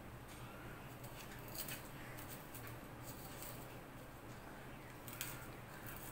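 Fingers mashing a green chilli with salt against a steel plate: faint, scattered scrapes and light clicks, the sharpest about five seconds in.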